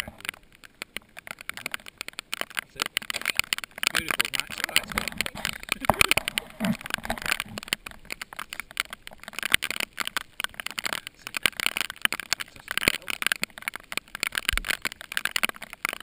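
Rain pattering on the camera housing and the kayak: a dense, irregular crackle of small taps that runs steadily throughout.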